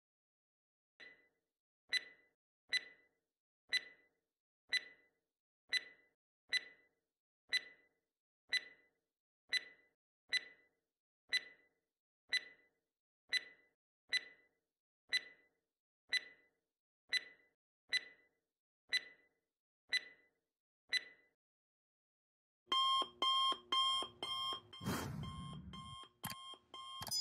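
Quiz countdown-timer sound effect: a clock ticking about once a second for some twenty seconds, then a loud alarm ringing from about 23 seconds in as time runs out.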